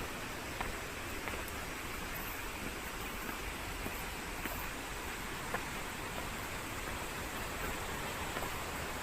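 Steady hiss of rain falling, with a few sharp ticks of single drops now and then.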